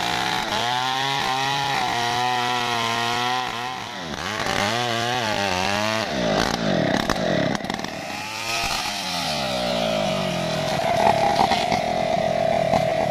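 Stihl MS070 two-stroke chainsaw cutting into a tree trunk under load, its engine pitch wavering up and down as it bites. After about six seconds the pitch changes and drops, then the saw runs more steadily near the end once it is out of the cut.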